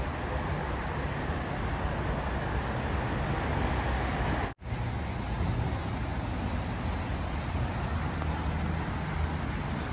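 Steady city traffic noise, an even rushing hiss with a low rumble underneath, broken by a split-second dropout about halfway through.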